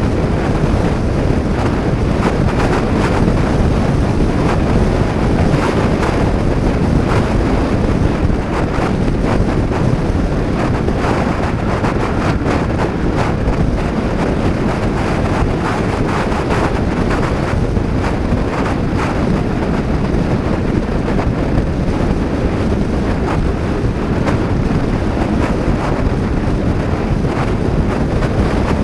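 Heavy wind buffeting an action camera's microphone on a moving Honda PCX 125 scooter: a loud, steady rush that buries the engine sound.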